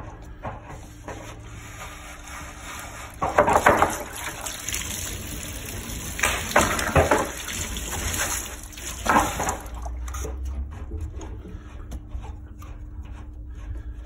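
Water hissing and spurting out of a water heater's drain port as the old drain valve is worked loose, in three surges over about six seconds, with light clicking before and after. The cold supply is shut off to vapor-lock the tank, so the water comes out in spurts rather than a full flow.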